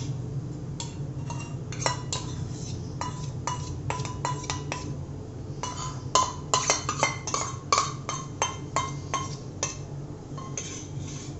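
A steel spoon scraping and clinking against a small stainless steel pot as thick caramelised sugar syrup is scraped out into cake batter. The clinks are sharp and irregular, several a second, and start about a second in.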